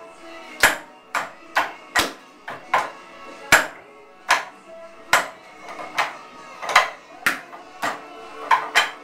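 Wooden wing chun dummy (mook jong) being struck: sharp wooden knocks and clacks as forearms and hands hit its arms and trunk, about two a second in an uneven rhythm, over background music.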